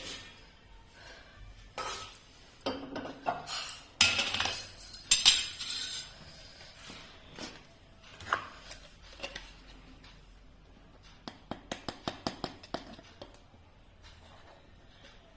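Kitchen utensils clinking and clattering against metal dishes: a louder clatter about four seconds in, and a quick run of light clinks about eleven seconds in.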